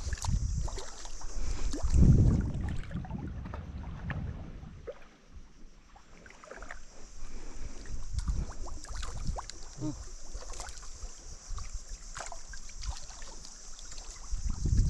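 Water splashing and sloshing with irregular thumps and knocks, loudest about two seconds in and quieter for a moment in the middle.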